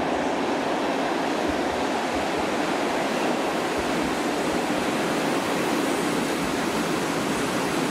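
Steady rushing noise of a PKP Intercity passenger train's coaches rolling slowly along the platform, with occasional low thuds.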